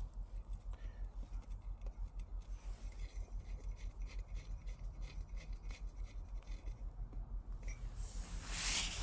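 Faint small metallic clicks and scraping of a valve stem extender being threaded onto a bicycle tube's valve, over a steady low hum, with a short rustle of handling near the end.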